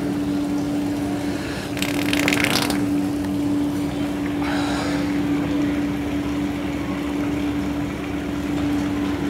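A steady machine hum with a loud, crackly wet fart noise from a Sharter prank device about two seconds in. A fainter burst follows about five seconds in.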